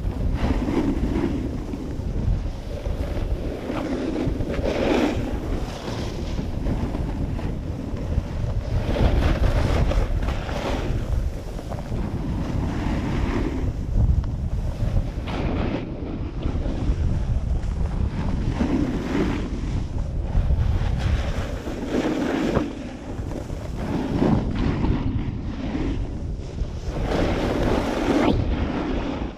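Wind buffeting the camera microphone in a steady low rumble, over a snowboard's edges scraping and hissing across packed snow, swelling every few seconds as the board carves through each turn.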